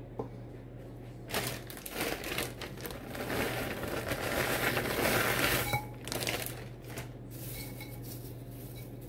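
Plastic bag of shredded hash browns crinkling and rustling as they are shaken out into a slow-cooker crock, loudest in the middle seconds, then fading to light rustling as the shreds are spread by hand. A steady low hum runs underneath.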